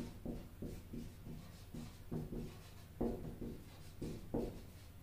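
Marker pen writing on a whiteboard: a run of faint, short scratching strokes, a few a second, with a couple of louder strokes about three seconds in and again a second later.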